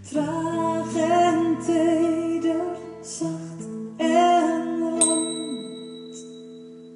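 Live band ending a song: a woman sings a wordless melody with vibrato over steady held chords from a small keyboard and acoustic guitar. About five seconds in a bright bell-like ding rings out, and the final chord fades away.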